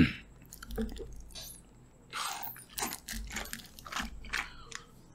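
A small mango-drink carton being sucked dry through its straw and squeezed in the hands, giving a run of short, irregular slurping and crackling noises as the carton crumples.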